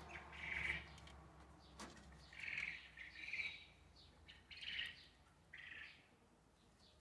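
A bird chirping faintly, five short calls spread over several seconds, with one sharp click about two seconds in.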